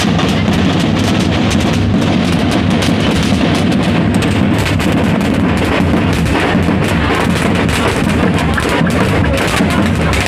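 Street drum band beating large steel-shelled bass drums with sticks in a loud, driving rhythm, with firecracker pops mixed among the beats.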